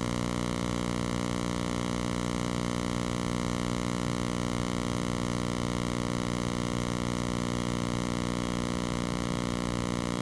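A steady, unchanging low hum made of many evenly spaced overtones.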